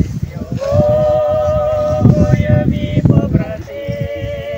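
Slow funeral singing: voices holding long notes, the longest a little after the start, then shorter phrases, over a low rumble of crowd noise.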